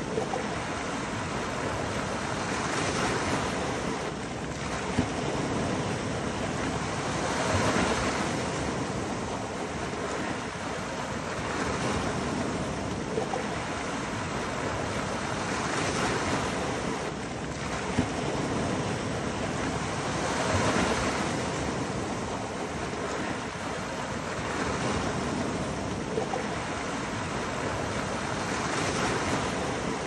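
Small Adriatic Sea waves washing over a low rocky shore: a steady wash of surf that swells every four or five seconds as each wave breaks over the rocks and drains back. There are a few brief sharp clicks among it.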